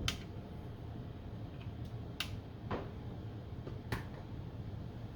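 Wire cutters snipping the excess soldered leads off a circuit board: three sharp snips spread over about four seconds.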